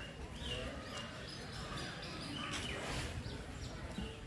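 Birds calling in short chirps, several times, over a steady outdoor background hum.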